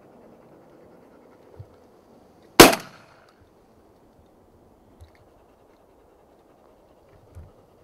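A single shotgun shot about two and a half seconds in, firing an Eley VIP Steel 32-gram steel-shot cartridge: one sharp crack with a brief echoing tail.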